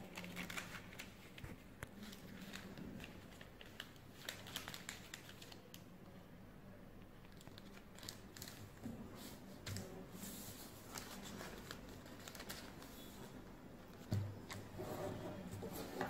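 A4 sheet of paper being folded and creased flat by hand: faint, scattered rustles and crinkles, a little louder near the end.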